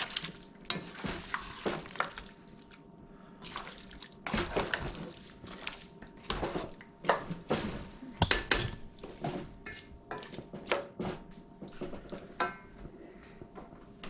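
Kitchen clatter: pots, dishes and utensils knocking and clinking irregularly, with some water sounds in between.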